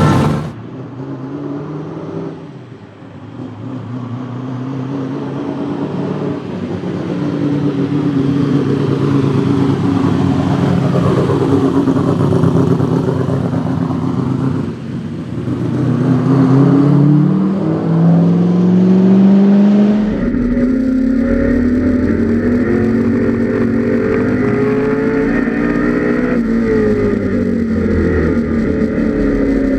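The carburetted 5.0-litre V8 of a 1984 Ford Mustang GT Group A race car running hard, its pitch rising and falling repeatedly as it accelerates and changes gear. About two-thirds in the sound changes abruptly to a steadier engine note with a heavier low rumble.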